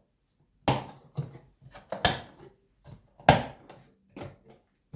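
Hard plastic toolbox parts knocking and clicking as they are handled: three loud knocks about a second and a bit apart, with lighter clicks between them.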